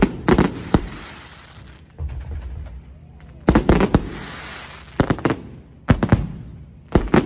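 Fireworks going off: about five quick clusters of sharp bangs, each trailing off in a crackling hiss, with a duller low thud about two seconds in.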